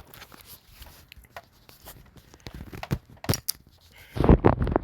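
Card pack wrappers being handled and torn open: scattered crinkling and tearing, with a louder burst of rustling and tearing about four seconds in.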